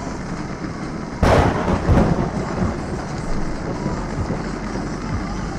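A sudden thunderclap about a second in, rumbling on with a second peak before it fades, over steady rain and car noise heard from inside a moving car.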